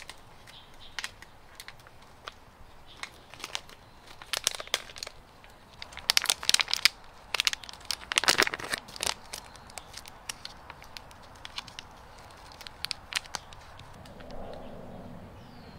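Thin plastic film crinkling and tearing as it is peeled off a vacuum-packed ear of corn, in irregular crackly bursts that are densest about four to nine seconds in and thin out after about eleven seconds.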